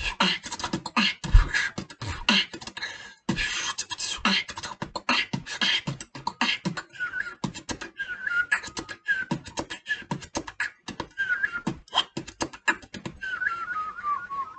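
A beatboxer performing a fast beat of mouth-made kicks, snares and hi-hats. From about halfway through, short whistles, made by breathing out through a small gap between the tongue tip and the palate, are worked into the beat, and near the end a longer whistle slides downward.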